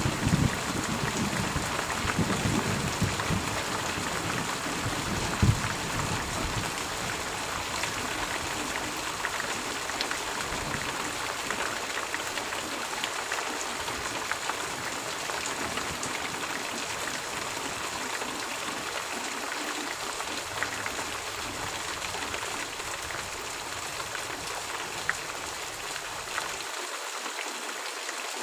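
Steady rain falling, with a low thunder rumble dying away over the first few seconds.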